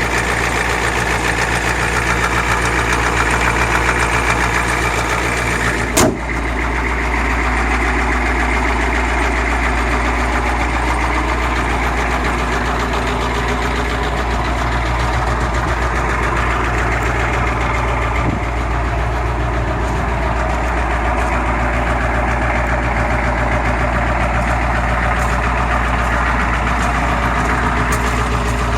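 Ford 7.3 IDI V8 diesel engine of a 1992 F-250 idling steadily shortly after a cold start on new glow plugs. A single sharp click about six seconds in.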